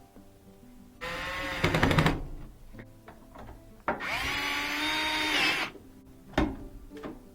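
Power drill driving screws into a dryer cabinet, in two runs, each a motor whine that rises in pitch, the second longer. A short sharp knock comes near the end.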